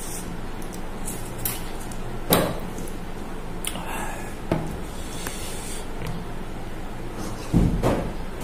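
Close-up eating sounds: a handful of sharp mouth smacks and light knocks of tableware, the strongest about two seconds in, then a louder slurp near the end from drinking out of a bowl.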